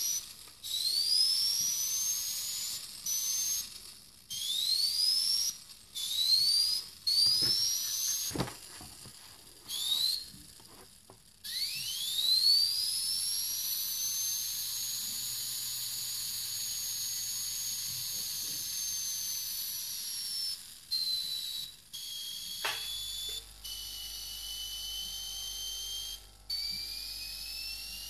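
Paasche AB Turbo airbrush's air-driven turbine whining. Several short high whines each rise in pitch as the turbine spins up and cut off abruptly. Near the middle a long whine climbs, holds, then slowly falls, and later a lower, steadier whine climbs again near the end.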